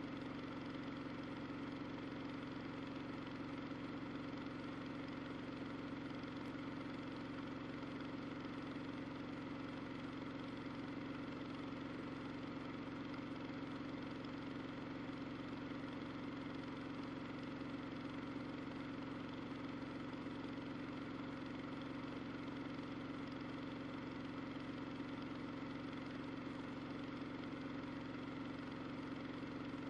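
Washing machine running with a steady, even hum that holds unchanged throughout.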